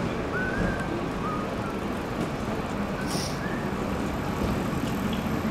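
A Renault Trucks D van's engine running steadily at low speed, amid the constant noise of city street traffic.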